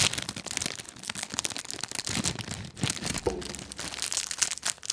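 Metallised-foil inner packet of Pretz crinkling and crackling close to the microphone as it is pulled apart at its side to open it.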